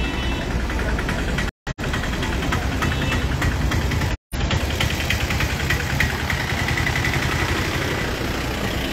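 Street noise with a vehicle engine running close by, steady and slightly knocking. The sound drops out completely twice, briefly, about a second and a half and about four seconds in.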